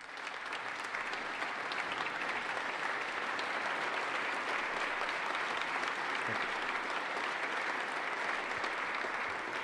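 Audience in a legislative chamber applauding steadily after a line in a speech.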